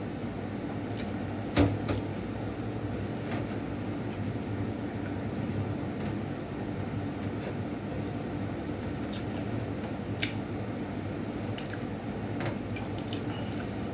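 A person eating: chewing and short wet mouth clicks and smacks over a steady low hum, with one sharper knock about one and a half seconds in.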